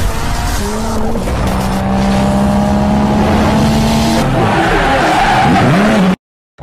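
Mk7.5 Golf GTI's 2.0-litre turbocharged four-cylinder running loud through a fully straight-through exhaust (decat downpipe, no GPF, no back box). The pitch holds fairly steady, then dips and climbs again near the end, like revs falling and rising, before cutting off suddenly. Music plays along with it.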